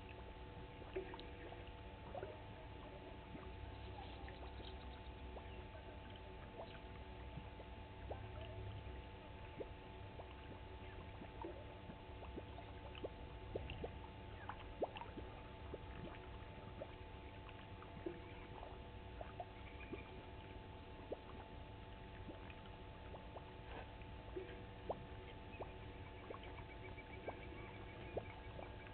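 Faint bush ambience: a steady low hum with scattered soft clicks and ticks throughout, and a faint high trill near the end.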